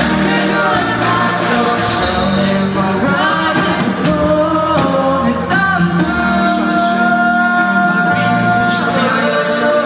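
Live band music with singing: long held sung notes over a steady bass line, with short sharp hits in the high end.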